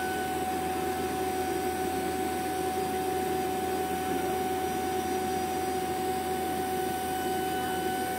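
Fieldpiece VP85 vacuum pump running steadily with an even motor hum, evacuating a refrigerant recovery tank through its hoses toward a deep vacuum of 500 microns.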